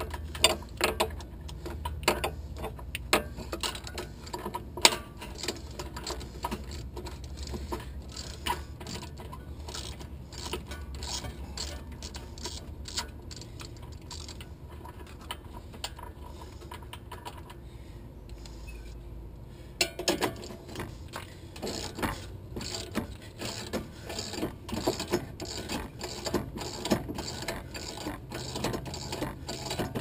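A hand ratchet wrench clicking quickly as it is worked back and forth to loosen the top bolts at a van's rear wheel hub. The clicking eases off for a few seconds about halfway through, then picks up again.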